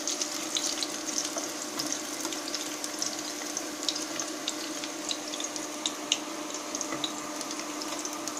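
Garlic, ginger and bay leaves frying in hot oil in a pan: a steady sizzle with many small crackles and pops, over a steady low hum.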